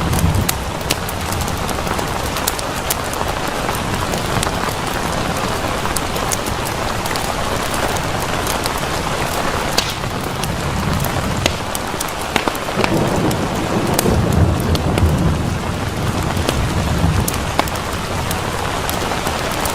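Steady rain falling on a surface, with many sharp drop ticks, and a low thunder rumble that swells a few times, most of all in the second half.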